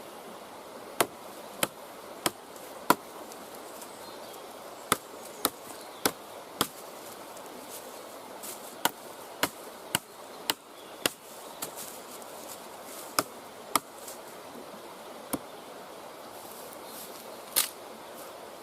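Sharp wooden knocks of an ESEE 5 knife being chopped into wood, in runs of four or five strokes a little over half a second apart, with pauses between the runs.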